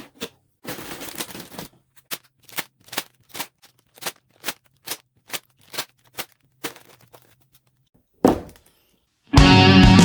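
A cardboard LEGO set box being opened: a rip, then a run of short sharp cracks about three a second, and one more rip near the end. Loud rock guitar music comes in just before the end.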